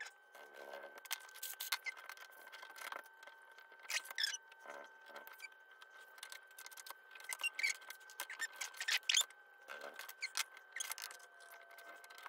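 Scattered light clicks, taps and scrapes of paper and small tools being handled and set down on a cutting mat, over a faint steady high whine.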